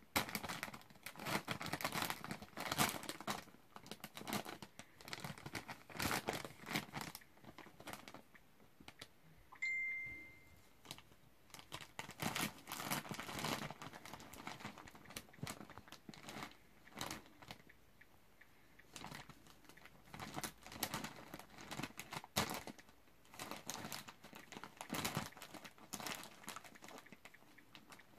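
Plastic snack bag crinkling and crackling in irregular bursts as a small dog rummages in it with its nose and paws. A short, steady high tone sounds once, about ten seconds in.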